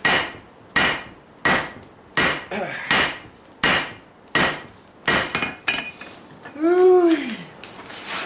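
Hand hammer striking hot steel on an anvil in a steady rhythm, about nine blows roughly three-quarters of a second apart, each with a short metallic ring, while the sides of the stock are upset. About seven seconds in, the blows stop and a brief tone that rises and then falls in pitch is the loudest sound.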